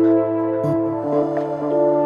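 Background music: calm ambient synth chords over a sustained bass note, the harmony changing about a second in.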